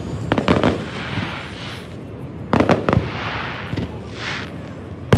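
Aerial fireworks display: shells bursting in quick clusters of bangs, about half a second in, again around three seconds in and once more at the end, with hissing between the bursts.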